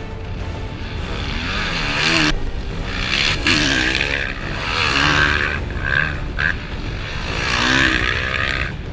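Motocross dirt bike engines revving up and down repeatedly as the bikes ride the track, the pitch climbing and dropping several times with throttle and gear changes.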